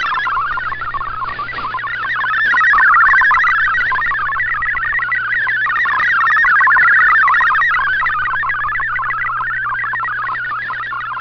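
MFSK64 digital text signal from a shortwave broadcast, heard through an Icom IC-R8600 receiver: a fast, busy warble of short stepping tones packed into a narrow band, its strength slowly swelling and sinking as the signal fades. A steady low hum runs underneath.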